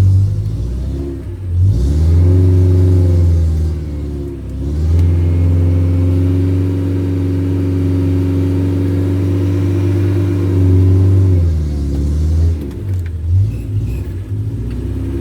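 Off-road vehicle's engine revving and held at high revs in two long pushes, dropping back briefly between them and settling lower near the end.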